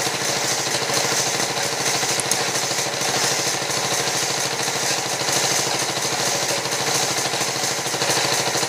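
Horizontal band saw ripping a log lengthwise into planks: the saw and its drive run loud and steady, with a fast, even rattle.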